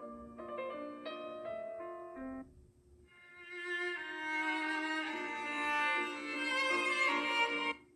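Samsung Galaxy A33 stock ringtones: a melody of short notes ends about two and a half seconds in, then after a brief pause a fuller ringtone of held notes swells up and cuts off abruptly just before the end.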